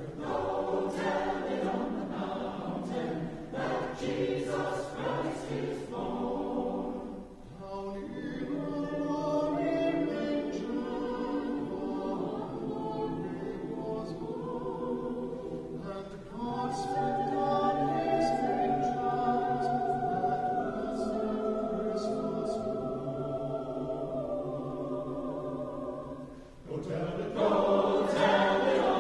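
Choir singing live in long held phrases, with brief pauses between phrases and a louder swell near the end.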